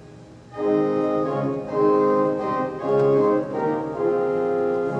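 Boardwalk Hall Midmer-Losh pipe organ's 8-foot diapason rank No. 8 played alone, sounding a series of held chords that begin about half a second in and change several times. The pipes speak from a windchest that has just been restored to working order.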